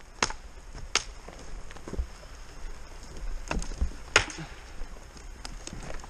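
Footsteps in snow: an irregular series of crunches and short sharp cracks, about one or two a second.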